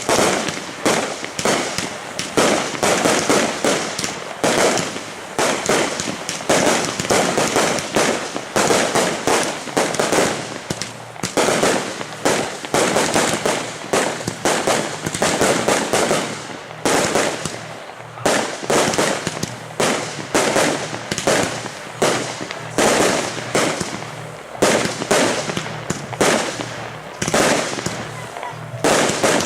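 Aerial fireworks firing in a rapid, continuous barrage, with several sharp bangs every second and no let-up.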